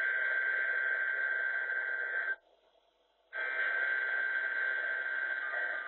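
NOAA Weather Radio EAS/SAME header data bursts, the harsh digital buzz that encodes a Tornado Watch alert, heard off a radio. One burst cuts off about two and a half seconds in, and after a one-second pause the next repeat of the header starts.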